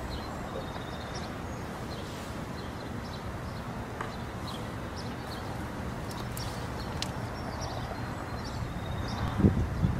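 Outdoor background noise, steady throughout, with faint short high chirps scattered through it and a few low thumps near the end.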